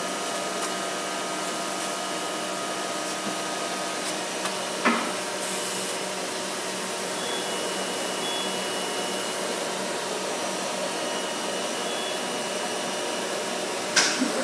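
Polar 92X guillotine paper cutter running idle with a steady motor whir and hum. A sharp knock comes about five seconds in and another near the end.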